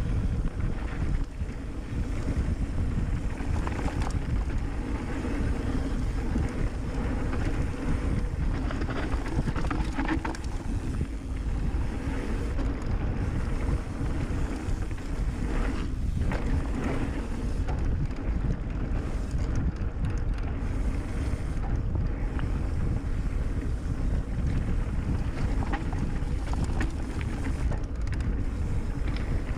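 Riding noise of a mountain bike descending a trail: wind rushing over the camera microphone and the tyres rolling over the dirt, with occasional knocks and rattles from bumps.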